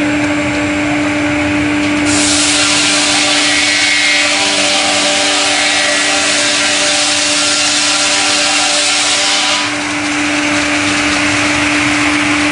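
Twin-blade horizontal circular sawmill running with a steady hum; about two seconds in its blades bite into a log, adding a loud hiss of sawing for roughly eight seconds before it drops back to the idle run.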